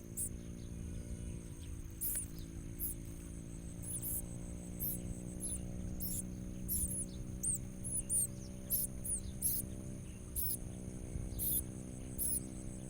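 Ciblek koya birds giving short, high, sharp chirps over and over, about one or two a second. Under them run a steady high whine and a steady low hum that shifts pitch slightly twice.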